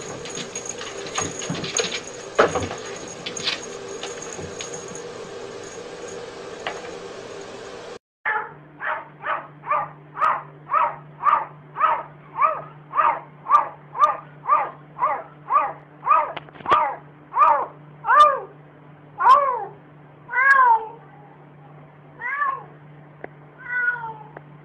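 A cat meowing over and over, short meows at about two a second, then slower, longer meows near the end. Before it, a cut-off stretch of steady background noise with a few knocks.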